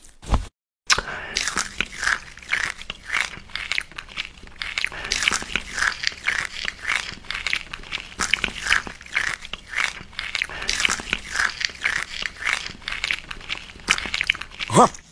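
Close-up biting and chewing of crunchy seasoned fried fillets: a dense, irregular run of crackles and crunches. Near the end a short rising whoosh is the loudest sound.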